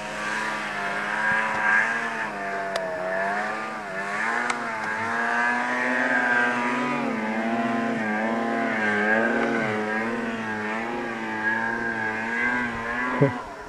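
Snowmobile engine revving up and down again and again as the sled climbs and carves through deep powder, over a steady lower drone. The sound breaks off abruptly just before the end.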